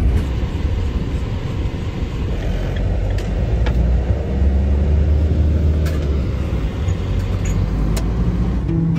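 Van driving on the road, heard from inside the cabin: a steady low engine and road rumble that swells and shifts pitch about halfway through, with a few sharp clicks and knocks from loose fittings.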